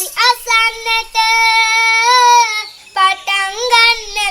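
A high voice singing a Sinhala folk song, with sliding, ornamented phrases and one long held note in the middle.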